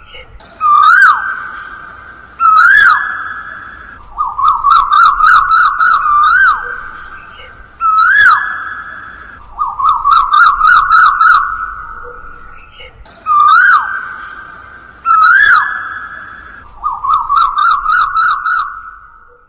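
Asian koel calling: a phrase of two loud swooping whistles that rise and then fall, followed by a quick run of short notes. The same phrase comes four times, about every four seconds, each with a ringing echo.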